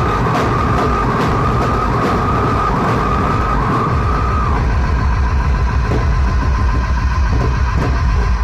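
DJ sound system playing loud electronic playback with heavy pulsing bass, a steady beat and a wavering high tone that drops away about halfway through.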